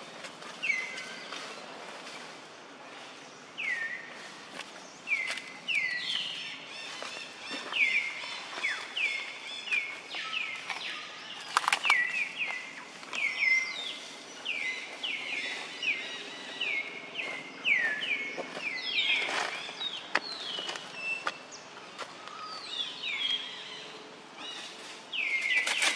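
A bird calling over and over, each call a short chirp that slides down in pitch, one or two a second, with a few faint clicks and rustles in between.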